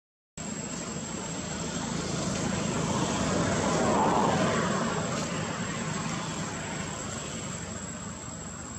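A propeller aircraft passing overhead: a rushing engine drone swells to its loudest about halfway through and then fades.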